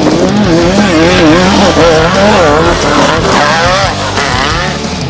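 Off-road race vehicle's engine revving hard, its pitch rising and falling a couple of times a second, with a quick climb in revs about three seconds in.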